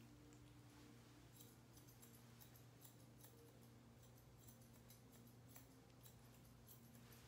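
Faint, rapid snipping of grooming shears cutting through a poodle puppy's coat during scissoring, over a low steady hum.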